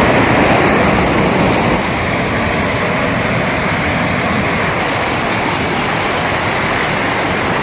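River water rushing over rocks: a loud, steady noise that drops a little in level about two seconds in.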